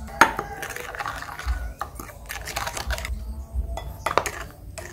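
Metal spoon clinking and scraping against a ceramic bowl while a liquid sauce is poured and stirred, with several sharp clinks, the loudest just after the start.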